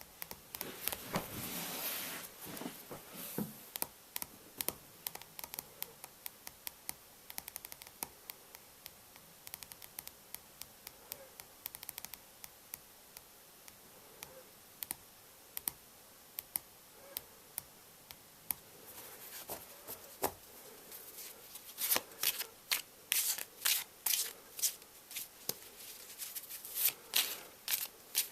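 Playing cards handled close to the microphone: a sliding rustle, then a long run of small sharp clicks and snaps, and toward the end repeated quick shuffling bursts.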